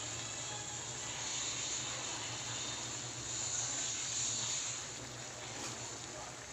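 Chicken pastel stew simmering in a pot, a steady bubbling sizzle that swells a little about halfway through.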